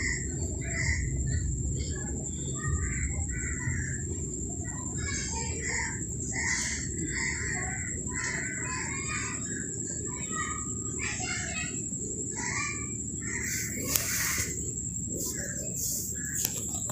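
Sewing machine running steadily as it stitches an elastic waistband, with birds chirping in short repeated calls over it.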